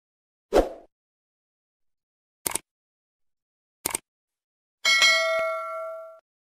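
Sound effects for an animated subscribe button: a short thump, then two quick mouse-click sounds about a second and a half apart, then a notification-bell ding that rings for about a second and cuts off.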